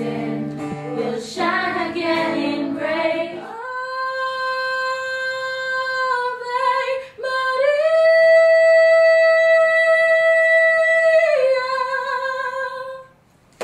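A group of students singing together to an acoustic guitar, then a girl singing solo without accompaniment from about three and a half seconds in, holding long notes, one rising to a higher note held for several seconds in the middle before settling back down.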